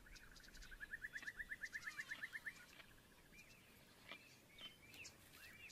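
Faint wild birdsong: a fast trill of repeated notes that climbs in pitch and grows louder, stopping about two and a half seconds in, followed by a few short chirps.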